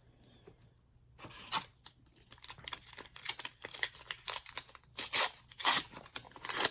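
Foil trading-card booster pack wrapper being torn open and crinkled: a run of sharp crackles starting about a second in, loudest near the end.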